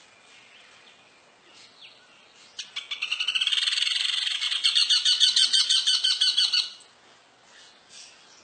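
A bird's rapid, chattering call: a fast, even run of high repeated notes lasting about four seconds, starting a few seconds in and stopping abruptly.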